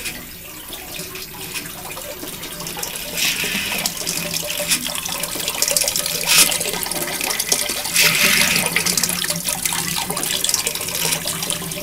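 Homemade hot air engine running and working its water pump: water gushes and splashes in repeated surges over a light mechanical clicking. The pump makes a little noise.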